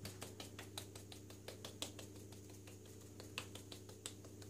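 Faint, irregular crackling clicks of dried rosemary being crumbled between the fingertips and falling onto raw vegetables in a roasting tray, several clicks a second.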